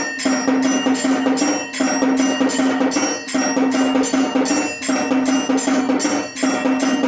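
Automatic temple bell and drum machine playing: rapid mechanical strokes on drums with bells ringing over them. It runs in a pattern that repeats about every second and a half.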